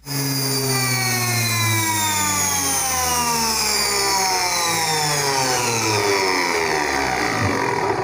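Washing machine universal motor spinning anti-clockwise, its whine falling steadily in pitch as it slows down.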